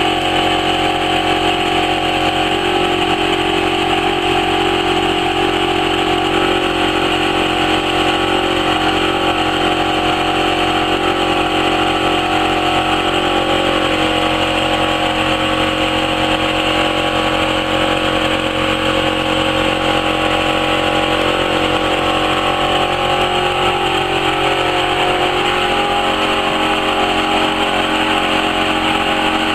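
Two-head laser fabric-cutting machine running: a steady mechanical hum made of several unchanging tones over a even haze, with a slight change in the low tones about 24 seconds in.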